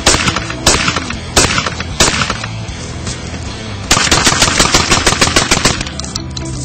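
Beretta A391 Xtrema 2 gas-operated semi-automatic 12-gauge shotgun firing. A few single shots about two-thirds of a second apart come first. About four seconds in comes a rapid string of twelve shots in under two seconds. Background music plays underneath.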